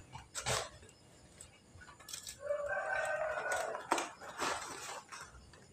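A chicken calling: one drawn-out, pitched call about two and a half seconds in. Around it come a few sharp taps and knocks from food boxes being handled on a wooden table.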